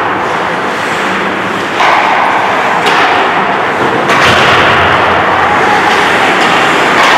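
Ice hockey play in a rink: a loud, steady rushing noise with a few sharp cracks of sticks and puck, the clearest about three and four seconds in.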